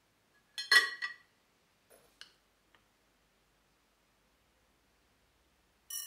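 A stainless steel mesh tea infuser basket set down into a glass teapot: one sharp clink of metal on glass with a short ring, then a few faint ticks. Another ringing clink comes right at the end.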